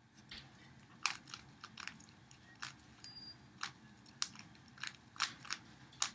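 Plastic 3x3 Rubik's Cube layers being turned by hand: irregular sharp clicks and clacks, about two a second.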